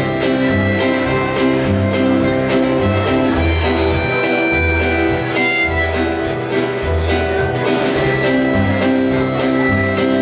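Live acoustic band playing an instrumental passage: upright bass, acoustic guitar and accordion over a snare drum keeping a steady beat.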